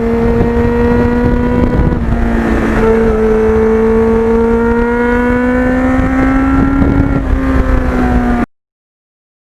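Kawasaki GPX750R's inline-four engine running under load on the move. Its pitch dips about two seconds in, as at a gearshift, then climbs steadily, eases slightly near the end, and cuts off abruptly.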